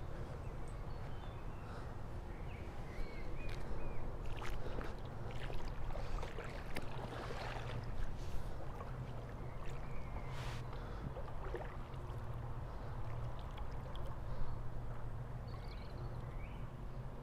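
Outdoor waterside ambience: a steady low rumble with water noise, scattered small knocks, and a few faint short chirps.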